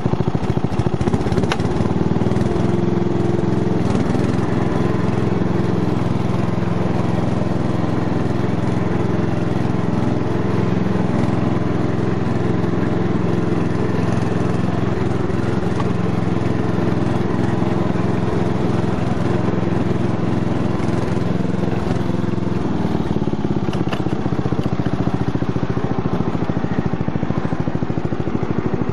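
Ride-on mower's engine running steadily under way as it drives across grass, towing an engineless mower behind.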